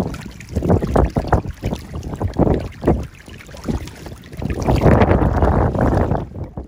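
Wind buffeting the microphone over water splashing and sloshing, as mullet churn and thrash at the surface of shallow water, in irregular surges.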